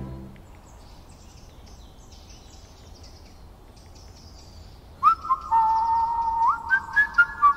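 Human-style whistling of a simple tune, starting suddenly about five seconds in: clear held notes with quick upward slides between them and light clicks alongside. Before it there is a quiet stretch with only faint high chirps.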